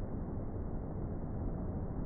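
Steady low rumbling noise with no distinct events, the even outdoor wash of a beach.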